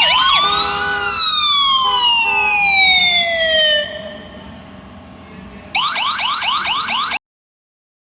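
Emergency vehicle siren: a slow wail rising for about a second, then falling for about three, fading back, then a fast yelp for about a second and a half before cutting off abruptly.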